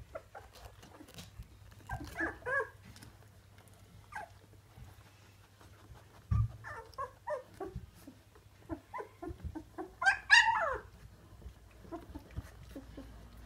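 Newborn fox red Labrador puppies, about two and a half weeks old, squeaking and whining in short scattered calls. The loudest call comes about ten seconds in and falls in pitch, and a dull thump sounds just after six seconds.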